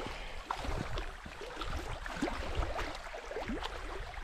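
Small waves lapping and splashing at the lake shore, a quick irregular patter of little splashes, over a low rumble of wind on the microphone.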